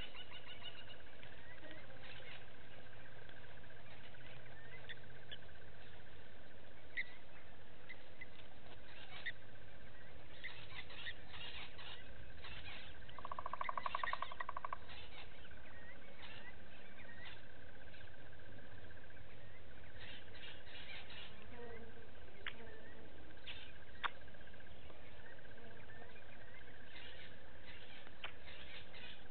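Bush ambience: scattered short high chirps and calls of small animals over a steady high-pitched drone, with a brief rapid buzzing trill about halfway through.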